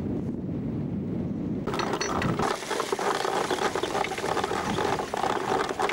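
Low wind and sea noise, then from about two seconds in an anchor chain rattling and clinking as it runs over the bow roller.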